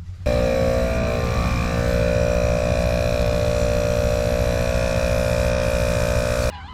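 Toyota Tundra's V8 engine running at a steady speed, starting suddenly and cutting off shortly before the end.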